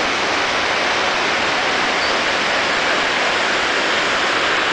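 Steady rushing of flowing water, an even unbroken hiss.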